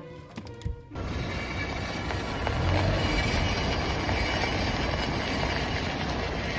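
A short musical chime, then from about a second in, steady rough mechanical noise from a car's brakes.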